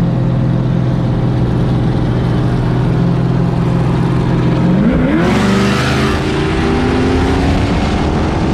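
Chevrolet muscle car's engine running at a steady low speed, then revving hard and accelerating about five seconds in, its note rising quickly and then holding high.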